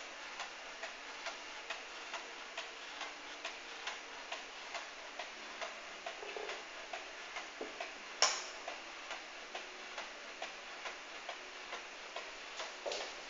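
1881 New Haven walnut kitchen clock's pendulum movement ticking steadily, about two ticks a second. There is one sharper, louder knock about eight seconds in.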